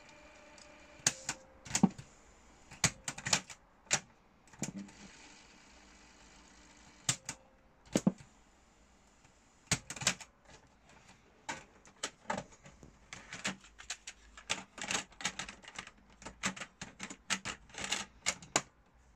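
Mechanical clicks and clunks from a 1980s Ferguson 3T17 radio cassette player: its piano-key transport buttons being pressed and the cassette door opening. The clicks come singly in the first half and in a quick rattling run near the end, as the cassette compartment is handled.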